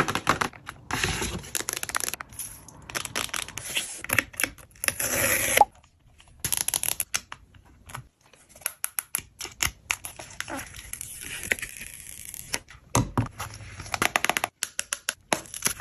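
Packaging being opened by hand: irregular tearing, crinkling and rustling with many small clicks, broken by a couple of short pauses.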